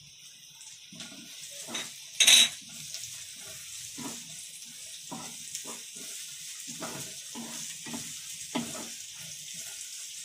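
Sliced onions and chopped green chillies sizzling in oil in a non-stick kadai, stirred with a wooden spatula in repeated short scraping strokes. One much louder knock of the spatula against the pan comes about two seconds in.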